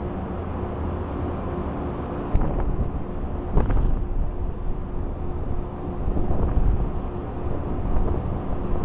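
Wind buffeting the microphone in low gusts, sharpest about two and a half and three and a half seconds in, over a steady low hum.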